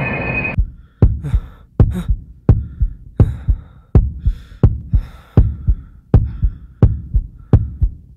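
Heartbeat sound effect in a film soundtrack: a steady double thump, lub-dub, about every three-quarters of a second over a faint hum. It comes in after a burst of music that cuts off suddenly just after the start.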